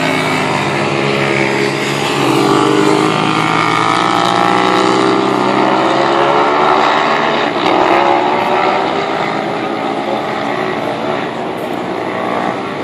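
Racing motorcycle engines at full throttle on the circuit, several at once, their pitch climbing and dropping as the bikes accelerate and shift. The sound swells and fades as they pass.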